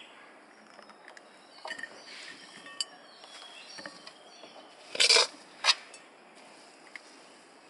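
Metal ladle scraping chopped kottu out of a metal wok onto a plate, with the soft patter of food falling and light clinks of metal on metal. Two sharper scrapes come about five seconds in.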